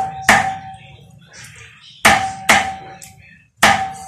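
Heavy kitchen knife chopping raw chicken on a chopping block: four hard chops, one about a third of a second in, two close together about two seconds in, and one near the end, each with a short metallic ring from the blade.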